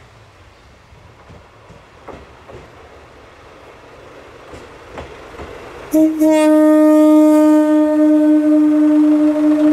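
Kamioka Railway KM-101 diesel railcar sounding its horn: one long, steady blast that starts suddenly about six seconds in, after a few faint clicks.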